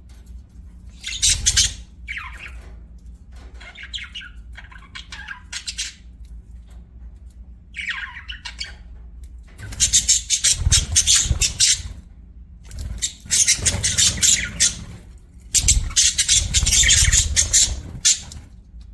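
Budgerigar chirping and chattering: short scattered chirps at first, then three long, loud bouts of rapid chatter in the second half.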